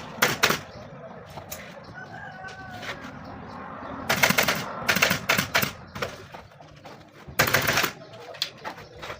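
Upholstery staple gun firing in quick runs of shots, driving staples into an armchair frame: a short run near the start, two more about four and five seconds in, and another near the end.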